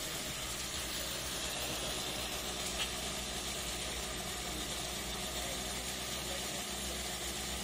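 Small single-cylinder motorcycle engine idling steadily while running on petrol vapour instead of liquid fuel.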